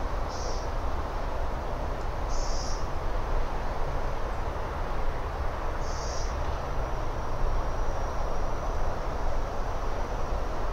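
Steady outdoor background noise with no clear source, with three short high chirps spread over the first six seconds and a faint thin high whistle that holds for a few seconds after the last chirp.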